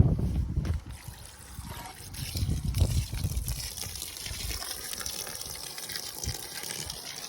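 Water from a freshly started RPS solar deep-well pump running out of the open outlet in a steady stream, building up about two seconds in. A few dull bumps sound underneath.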